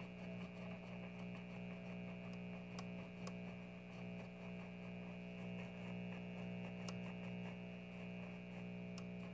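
Steady mains hum from a 1951 Silvertone tube clock radio that is switched on but pulling in no station, with a few faint clicks.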